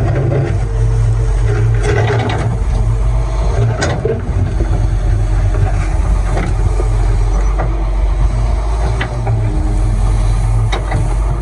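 Excavator's diesel engine running steadily at work, with a few sharp knocks over it.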